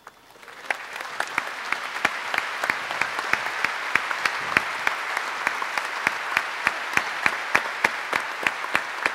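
A large audience applauding, building up from silence over the first second into steady clapping. Sharp, close claps stand out from the crowd about three times a second.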